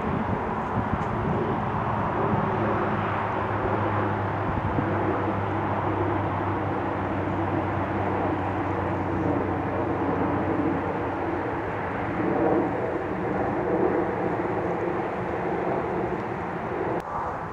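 Twin-turboprop airliner climbing out overhead after take-off: a steady propeller and engine drone with a pitched hum, whose tones shift as the aircraft passes. It cuts off abruptly shortly before the end.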